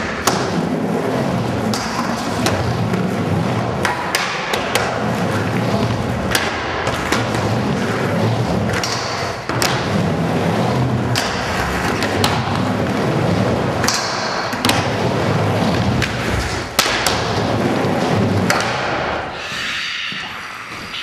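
Skateboard riding a wooden mini ramp: a continuous rumble of the wheels rolling on the plywood, broken by irregular sharp knocks and slaps of the board. The rolling dies down near the end as the rider stops.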